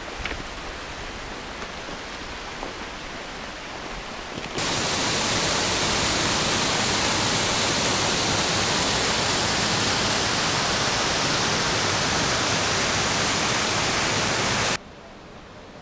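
Steady rushing water, a loud even roar that jumps louder about four and a half seconds in and cuts off abruptly near the end.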